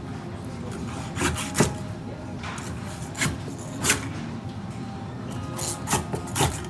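Long fish knife sawing crosswise through a whole saithe, cutting it into steaks, with rasping strokes through flesh and backbone. Several sharp knocks come through the cuts, the loudest about a second and a half in and near four seconds in.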